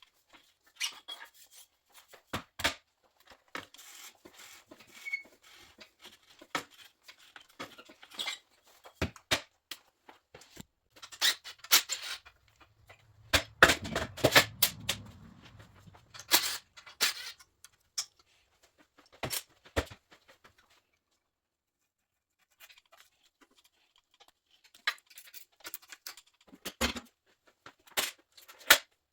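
Irregular clicks, knocks and short squeaks of hand tools and metal bike parts being handled during motorcycle disassembly, busiest around the middle, with a low rumble under the loudest knocks and a two-second gap of silence about two-thirds through.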